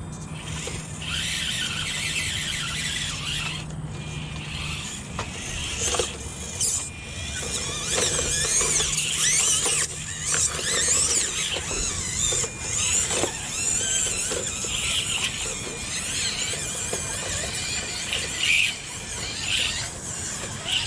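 High-pitched whine of the small electric motors and gearboxes of 1/24-scale RC crawlers (Axial SCX24), rising and falling with the throttle as they climb over rocks. Scattered clicks of tyres and chassis knocking on stone.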